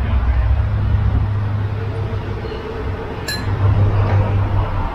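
Low steady rumble with a single sharp clink of tableware, a spoon against a bowl or glass, about three seconds in.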